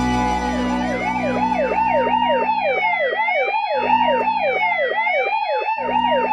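Police siren sound effect: a fast yelp sweeping up and down about three times a second, layered with a slower wail rising and falling every two seconds or so, over a low hum that cuts out briefly twice.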